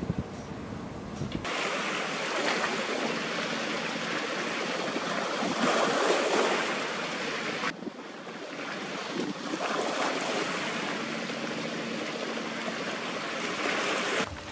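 Steady rushing noise of wind and river water, with a faint low hum underneath. It cuts in about a second and a half in, after a brief low rumble with knocks, and drops out briefly near the middle.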